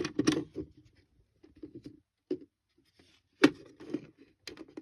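Plastic smoke alarms being handled and set down on a surface: a few sharp knocks, one near the start and two more in the second half, with small clicks and taps between.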